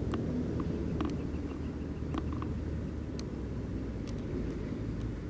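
Faint, short clicks of an antenna analyzer's keypad buttons being pressed, about six spread over a few seconds, over a steady low background rumble.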